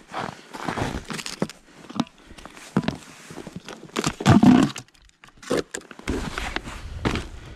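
Irregular rustling, scraping and knocking of clothing and gear being handled, a plastic bucket on a sled among it, with the loudest rumbling burst about four seconds in and a low steady rumble from about six seconds.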